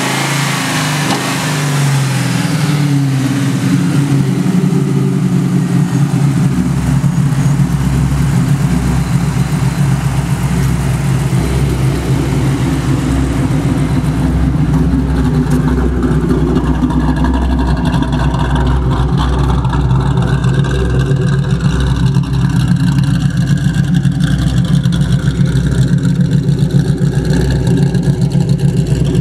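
1999 Mustang GT's cammed 4.6-litre V8, breathing through longtube headers and an SLP catback exhaust, running loud. The revs fall over the first few seconds, a deep rumble comes in at about six seconds, and after that it settles into a steady, pulsing run.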